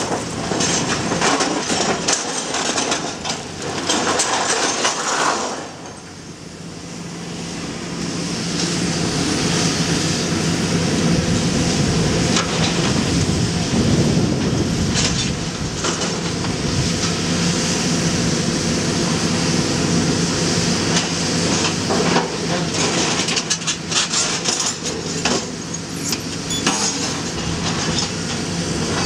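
Komatsu PC400 excavator's diesel engine running under hydraulic load while its demolition shear drags and bites scrap steel, with repeated metal clanks and scraping. The engine drops back about six seconds in and builds up again a couple of seconds later.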